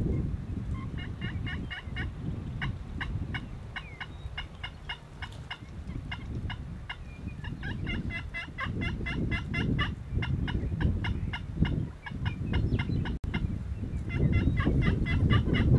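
Merriam's wild turkey gobbling, several rattling gobbles in a row, with a low rumble underneath.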